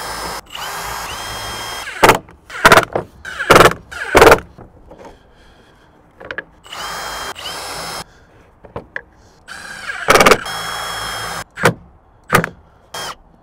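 Milwaukee cordless drill driving wood screws into plywood bases in three short runs, each spinning up to a steady whine and lasting one to two seconds. Between the runs, the boards knock loudly several times as they are handled and set down, louder than the drill.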